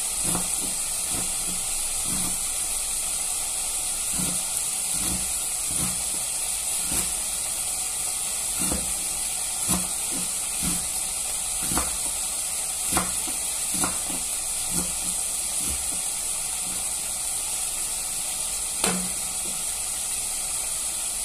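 Kitchen knife chopping collard greens on a cutting board: irregular short knocks, roughly one a second, with a few louder strikes. A steady hiss runs underneath.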